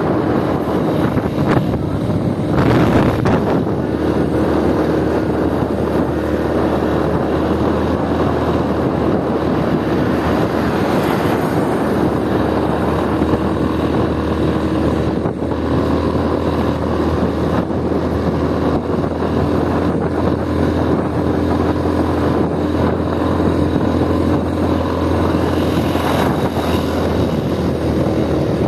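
Motorbike engine running steadily at cruising speed, mixed with wind rushing over the microphone, with a brief louder rush about three seconds in.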